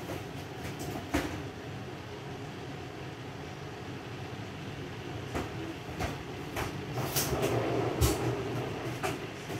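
Steady whir of a kitchen range hood fan, with a scattering of sharp knocks and clinks, the loudest about a second in and about eight seconds in.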